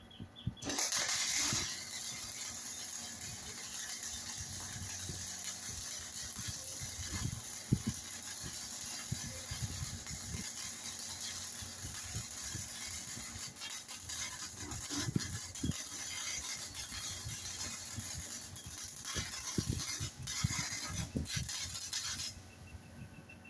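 MIG welder laying a short-arc bead, a steady crackling hiss that starts just under a second in, runs for about twenty seconds and cuts off shortly before the end. It is a test pass on thin angle to set the machine, which the welder then judges to be running a little fast.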